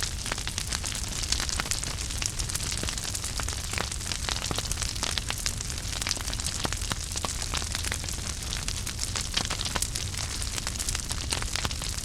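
Wood fire burning in a fireplace, crackling steadily with frequent small irregular pops over a low rumble and hiss.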